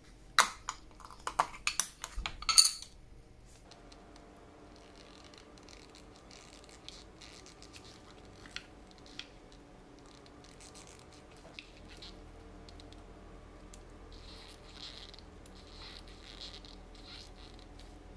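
A quick run of sharp clinks and clicks as small hard parts and tools are handled on a watchmaker's bench. After that come faint scraping and a few light ticks as a fine steel tool works at the edge of the watch dial.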